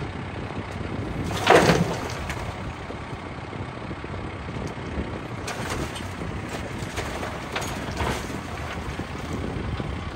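Compact tractor's diesel engine running as its front loader lifts and tips a bucket of dirt into a pickup bed, with a brief louder burst about a second and a half in.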